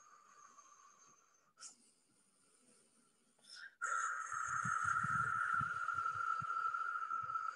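A long, forceful breath blown out through pursed lips, a steady breathy hiss that starts about four seconds in and lasts over three seconds. It follows a quieter pause with a single faint click.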